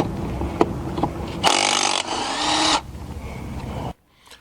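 Avid Power 20V brushless cordless impact wrench working on a car, with clicks and a steady hum at first. A louder, harsher stretch of hammering runs from about a second and a half in for just over a second. The sound then eases and cuts off abruptly about half a second before the end.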